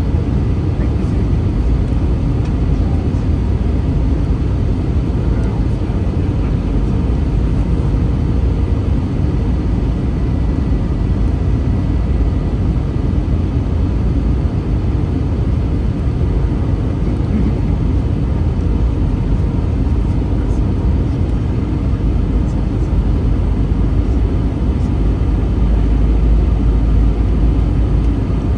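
Steady low rumble inside the cabin of an Airbus A321 airliner: engine and airflow noise heard from a passenger seat, with the deepest rumble growing a little stronger near the end.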